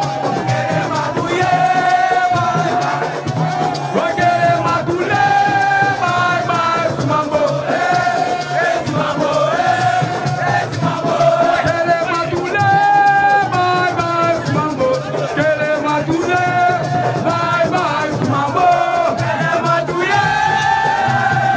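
Music with a voice singing a melody over steady shaken-rattle percussion.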